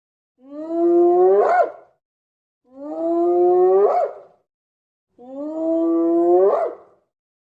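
An animal's drawn-out, pitched call, heard three times in identical form, each about a second and a half long and bending up in pitch at the end.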